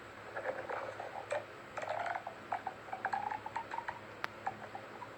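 Plastic mini pop tube being stretched and squashed: a string of irregular small clicks and pops.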